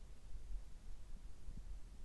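Stomach sounds shortly after a gastroscopy and a drink of water: a low, uneven rumble with one faint short gurgle about one and a half seconds in.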